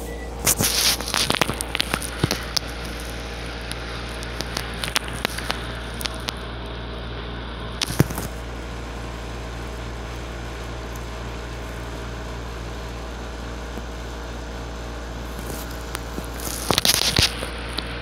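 Crackling and knocking of a phone being handled close to its microphone, in clusters in the first couple of seconds and again near the end, with one sharp click about eight seconds in, over a steady low hum.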